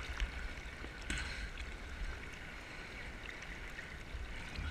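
Choppy sea water sloshing and splashing around a camera held at the surface by a swimmer, with a low rumble. There is a louder splash about a second in.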